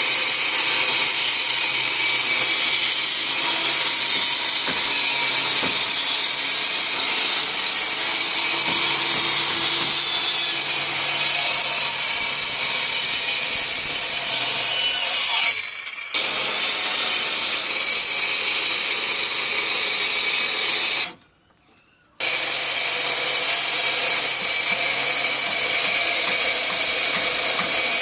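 A power woodworking tool running steadily on wood, a loud even hiss with a faint motor whine in it. It breaks off briefly twice, near the middle and again a few seconds later.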